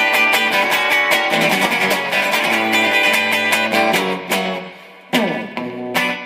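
Instrumental break of a rock song, with guitars playing. About four seconds in, the music thins out and a falling slide sounds, then strummed chords come back in near the end.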